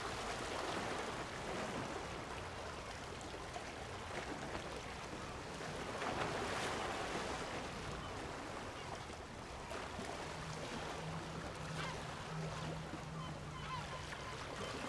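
Small waves washing against the shore, a rushing noise that swells and eases every few seconds. A low steady engine hum joins about ten seconds in.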